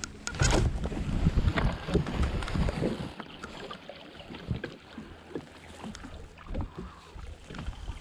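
Irregular sharp clicks and rubbing knocks from a life-jacket zipper hitting a chest-mounted GoPro's microphone as the wearer moves, over low wind and water rumble. The knocks are densest in the first three seconds, then thin out to scattered clicks.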